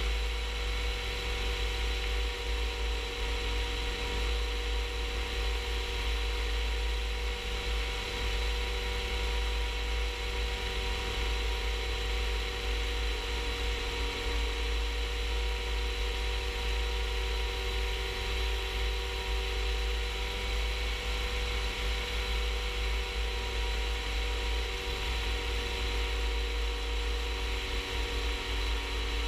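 Rans S-14 light aircraft's engine running steadily in level cruise, a constant drone with several held tones, under heavy wind rumble on the outside-mounted microphone.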